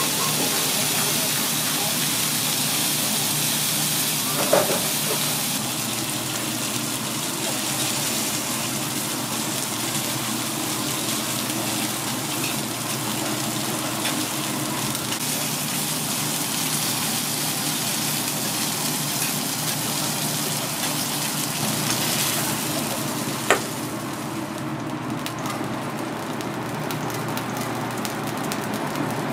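Kobe beef steak sizzling on a steel teppanyaki griddle, a steady frying hiss, with two sharp metal clinks on the plate. Near the end the hiss turns duller once a steel dome lid covers the steak.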